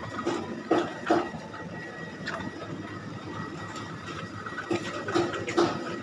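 Plastic wheeled shopping basket rolling over a tiled floor, rattling with a handful of sharp knocks, over a steady hum from the chiller cabinets.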